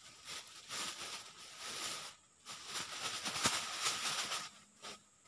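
Crackling, rustling noise close to the microphone, in two stretches of about two seconds each with a short pause between them.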